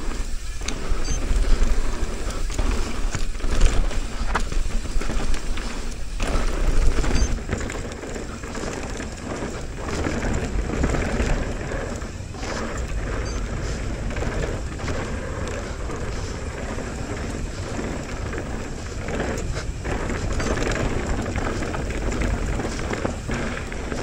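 Downhill mountain bike descending a dusty, loose dirt trail at speed: tyres rumbling and skidding over the dirt and the bike rattling and knocking over bumps, with wind rushing over the camera microphone. The knocks and jolts are heaviest over the first several seconds, then the rumble evens out.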